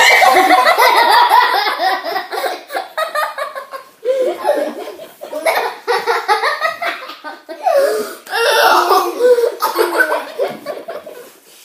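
Several girls laughing hard and loud, in waves that break off briefly and start up again twice.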